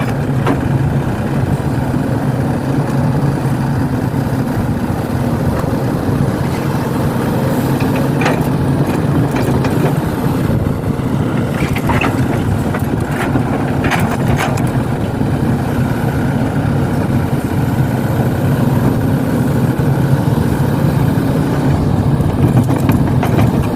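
Heavy diesel engine running steadily with a low drone, with a few short clanks or knocks in the middle.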